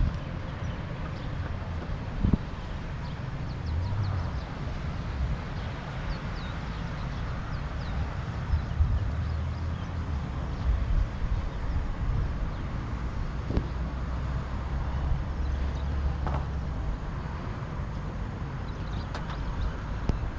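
Car driving: a steady low rumble of road and engine noise with a hiss over it, and a few short knocks.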